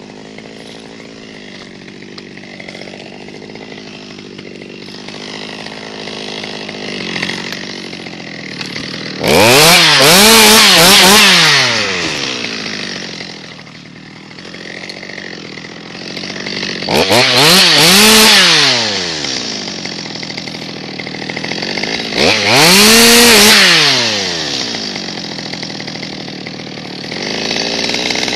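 Stihl MS 200T top-handle two-stroke chainsaw idling, then revved to full speed three times for two to three seconds each, its pitch climbing and dropping back, as it cuts off pine branches. Another rev starts at the very end.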